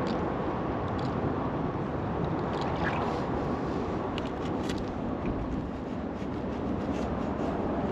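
Steady wind rumble on the microphone, with a few faint small clicks.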